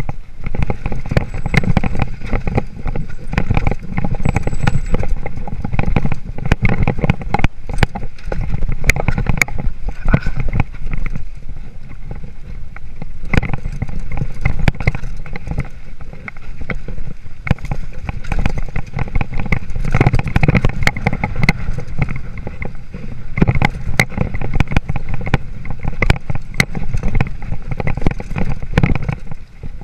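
A 2013 Haro Flightline Sport 26-inch hardtail mountain bike riding over a rough dirt and rock trail, heard from a chest-mounted GoPro: continuous tyre and wind rumble with constant rattling and sharp knocks as the bike bounces over rocks.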